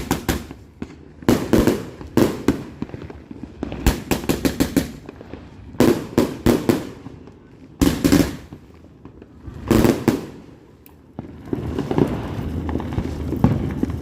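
Consumer fireworks going off: groups of sharp bangs every second or two, some in rapid strings of pops, giving way near the end to a denser, steadier crackling.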